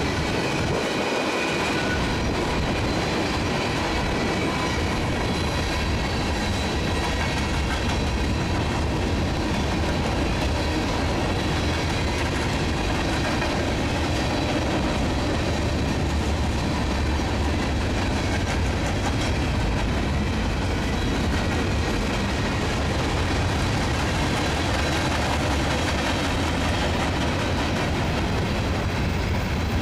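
Open-top garbage hopper cars of a CSX freight train rolling past close by, their steel wheels running on the rails in a steady, unbroken rumble.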